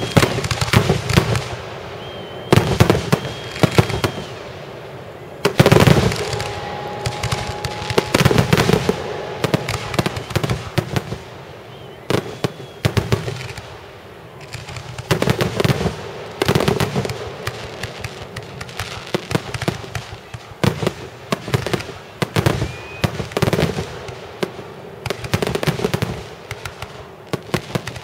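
Aerial fireworks going off in a dense, irregular series of sharp booms with crackling between them, some bursts much louder than others, and a few brief whistles.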